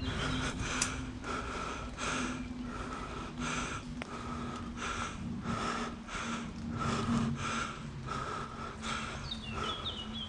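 Rhythmic noisy sounds about twice a second, close to the microphone, from a person moving on foot: hard breathing and steps, over a low steady hum.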